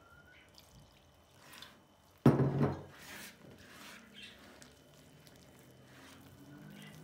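A hand working flour and water into dough in a plastic bowl: soft squishing and rubbing, with one sudden loud thump a little over two seconds in.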